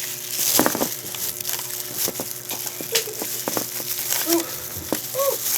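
Crunching and crinkling of food and its packaging being handled and eaten close to the microphone, with many short clicks and a few brief faint voice sounds.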